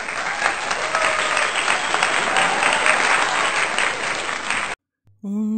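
Crowd applause with faint voices in it, cutting off suddenly a little under five seconds in. A woman's voice then starts singing just before the end.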